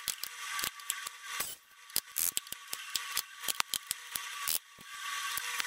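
Compressed air hissing from a hand-held air tool with a brass nozzle worked along a car's steel sill, with many sharp, irregular clicks. The hiss stops briefly twice.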